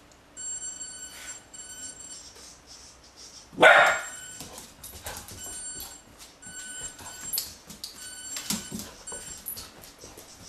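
A golden retriever puppy gives one loud bark about three and a half seconds in, with a few smaller dog sounds later. Throughout, the high whine of a toy RC car's electric motor comes and goes in short spurts.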